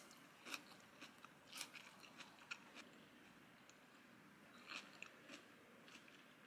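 Faint, close-up chewing of crisp salad leaves and bell pepper: a few soft, scattered crunches.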